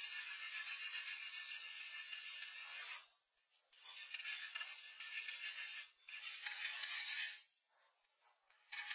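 Hand saw cutting through wooden cladding boards: a scratchy rasp of the teeth in the wood. It comes in three runs, broken by a short pause about three seconds in and a longer one near the end.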